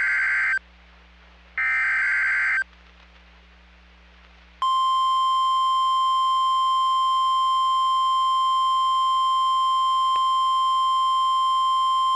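NOAA Weather Radio alert signalling an incoming tornado warning. The tail of one short buzzy data burst of the SAME header is followed about a second later by another. Then, a little over four seconds in, the steady 1050 Hz warning alarm tone starts and holds.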